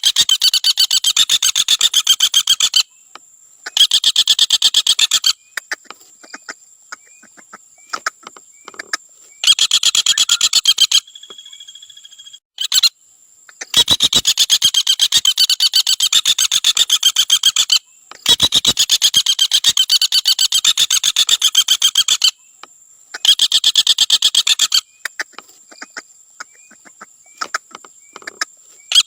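Common flameback woodpecker giving its rapid rattling trill over and over, in about six bursts of one and a half to four seconds each, separated by short pauses.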